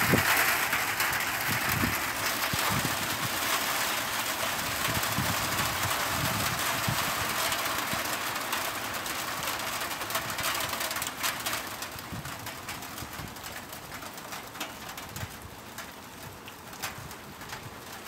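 Hail falling, a dense patter of hailstones striking that is heaviest at the start and thins over the last several seconds into scattered separate ticks.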